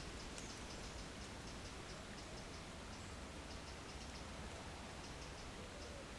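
Quiet outdoor ambience: a steady faint hiss with many faint, irregular high ticks scattered throughout, and a few faint wavering tones near the end.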